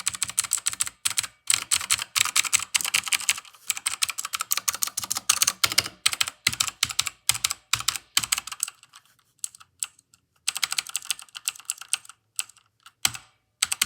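Mechanical keyboard with Outemu Blue clicky switches being typed on: fast runs of sharp keystroke clicks, broken up in the second half by sparser single keystrokes and short pauses.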